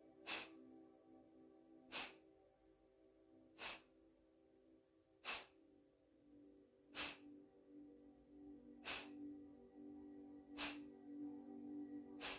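Kapalabhati breathing: sharp, forceful exhales pushed out through the nose, one about every 1.7 seconds, eight in all, over soft sustained background music.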